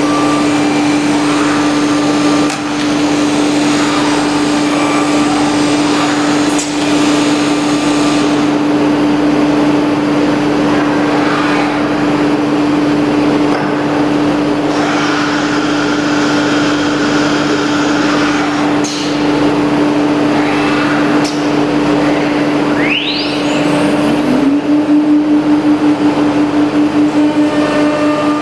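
CNC nesting router at work on MDF: the spindle runs with a steady high hum over a rushing noise of cutting and the vacuum hold-down. About 23 seconds in, the spindle briefly drops off and then spins back up in a rising whine, after which the sound pulses.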